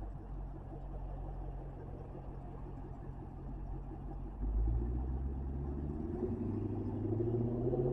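Dodge Challenger widebody's V8 rumbling as it rolls out at low speed. About halfway through, the throttle opens and the exhaust gets suddenly louder, its note climbing as the car pulls away.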